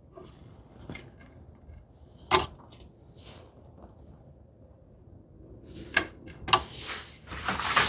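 Wooden drawer parts being handled on a workbench: a single sharp wooden knock about two seconds in, a couple more knocks around six seconds, then scraping and rustling near the end.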